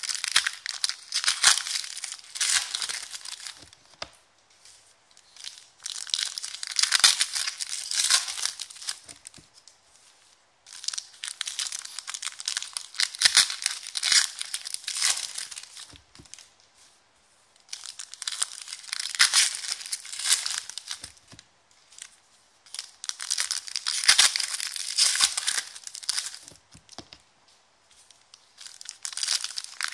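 Foil wrappers of 2016/17 Select basketball trading-card packs crinkling and tearing as they are ripped open by hand, in about five bursts of several seconds each with short pauses between.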